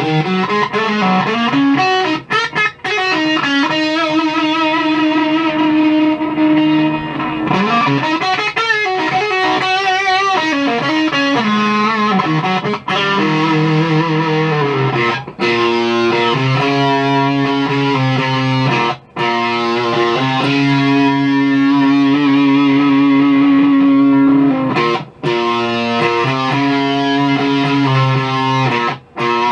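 Electric guitar played through a Maestro FZ-1A fuzz pedal clone, with sustained distorted notes and riffs. Around eight to ten seconds in the notes bend and waver in pitch, and the playing stops briefly between phrases several times.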